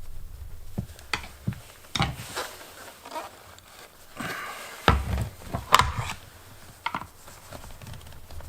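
Hard plastic headlight parts being handled and forced into place: irregular clicks and knocks, with some rubbing about halfway through.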